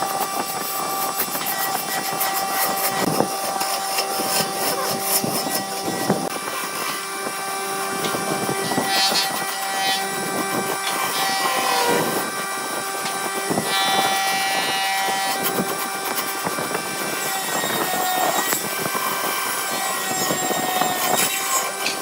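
Wood lathe running, with a turning tool cutting into the spinning wood: a steady motor tone under a continuous scraping, cutting noise, with a few short knocks.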